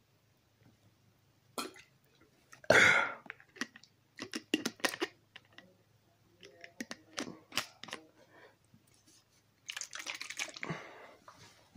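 Irregular clicks and crackles of a plastic sports-drink bottle being handled after a drink, with a louder burst about three seconds in and a rougher rustle near the end.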